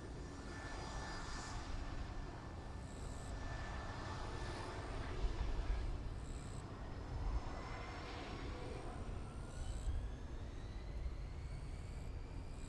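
Regional airliner's engines heard at an airport: a steady rumble with a whine that rises in pitch from about nine seconds in.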